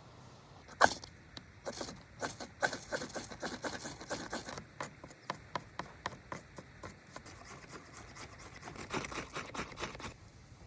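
An irregular run of small clicks and light knocks, several a second, with one sharper knock about a second in.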